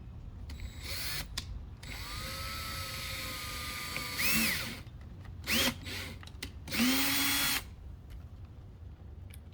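Power drill boring a pilot hole through a plastic fender flare. It runs in several bursts: a long steady run, then shorter, louder spurts with the motor speed rising and falling.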